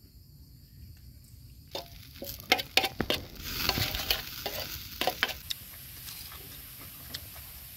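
Cooking on a hot rock: a run of sharp knocks and scraping clatter from about two seconds in until about five and a half seconds, then a steady sizzle.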